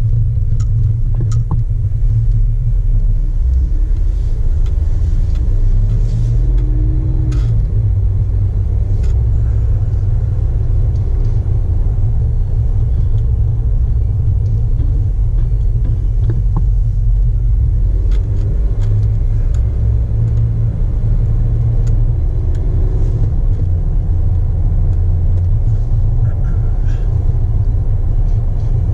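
Steady low rumble of the Jeep Wrangler JK's engine idling, with a few faint scattered clicks.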